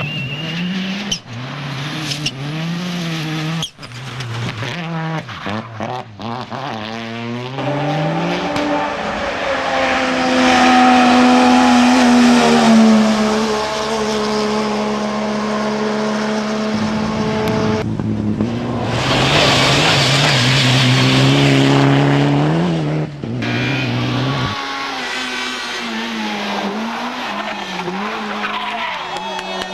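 Racing car engine revving hard, its pitch repeatedly climbing and dropping through gear changes. A louder rush of noise takes over for a few seconds past the middle.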